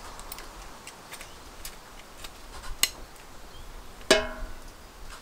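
Small metal clicks and ticks from a steel rotisserie spit and its forks being tightened, then one loud ringing metal clank about four seconds in as the spit knocks against a stainless steel tray.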